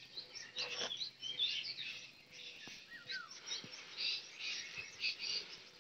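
Several small birds chirping and calling together: a steady stream of short high chirps and trills, with a falling whistle about three seconds in.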